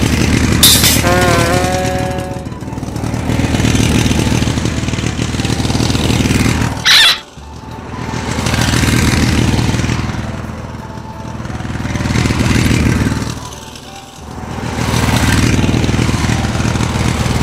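Electric ride-on toy motorcycle playing its recorded engine-revving sound effect through its speaker, swelling and fading about every three to four seconds as the throttle is twisted. A few short electronic tones sound about a second in, and a brief sharp noise about seven seconds in.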